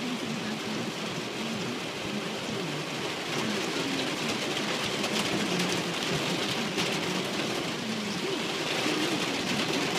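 Heavy rain drumming on a car's roof and windshield, heard from inside the moving car: a dense, steady hiss that gets louder about three seconds in.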